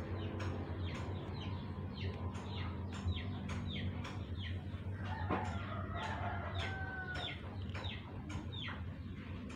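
Chickens calling: a running string of short, falling peeps, several a second, with a longer steady call a little past the middle.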